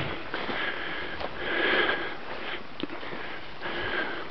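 Three loud sniffing breaths close to the microphone, roughly a second apart, the middle one the loudest.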